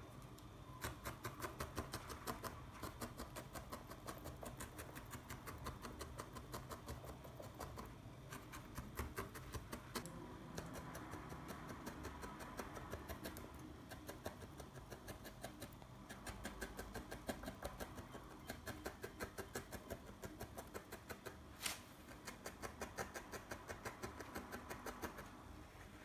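Felting needle stabbing repeatedly through wool into a foam pad: rapid, even pokes several times a second, with a few short pauses.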